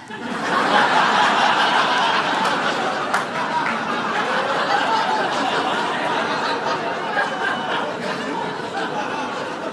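Audience laughing, swelling up within the first second and slowly dying down.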